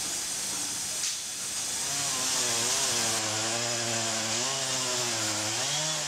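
Wood-Mizer WB2000 wide band sawmill running, with a steady hiss of sawing. About two seconds in, a slowly wavering machine hum joins it and rises in pitch near the end.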